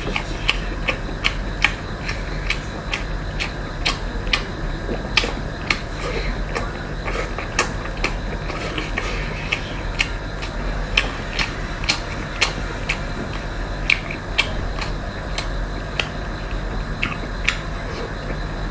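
A steady run of sharp, irregular clicks and taps, about two or three a second, over a low steady hum.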